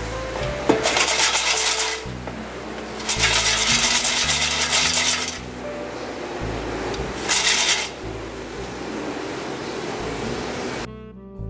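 Background music with steady low notes, overlaid by three bursts of rasping, scraping noise, the longest about two seconds; near the end the music turns to plucked guitar and piano.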